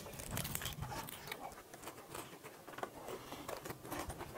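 Close-miked eating: people chewing and smacking food with open mouths, with many small clicks of chopsticks and a spoon against the pot.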